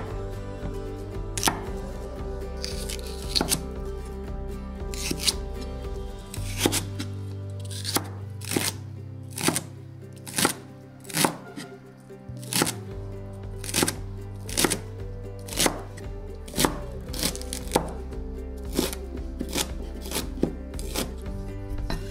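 Cleaver chopping celery stalks on a bamboo cutting board: crisp single knocks of the blade through the celery into the board, about one or two a second, over background music.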